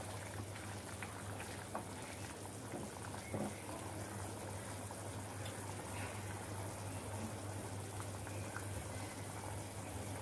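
Pot of khichuri (rice and mung dal in hot water) boiling, a steady bubbling with scattered small pops, over a low steady hum.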